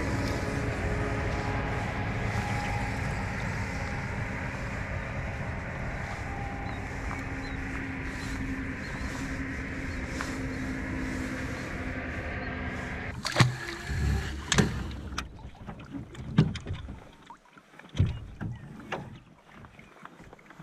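A small boat motor hums steadily, with a few fixed tones in it, and cuts off about thirteen seconds in. After that come scattered sharp knocks and clicks on the boat.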